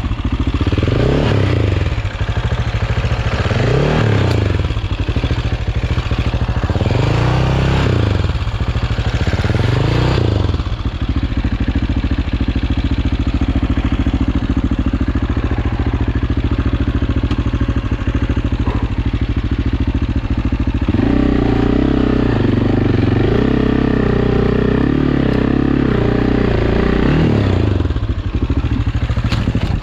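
AJP PR7's single-cylinder engine being ridden off-road, revving up and falling back in four surges over the first ten seconds, then running at steadier throttle, with another rev near the end.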